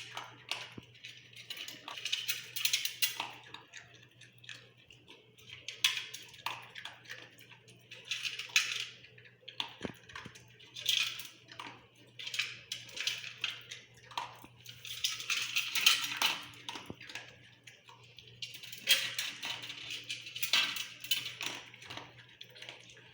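A dog eating from its bowl: chewing and clattering of food against the bowl in short bursts every couple of seconds.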